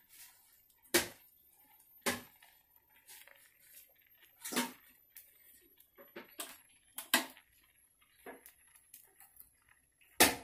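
Kitchen utensils and containers clinking and knocking against a metal cooking pot: about six sharp knocks spread irregularly, the loudest near the end, with fainter ticks between.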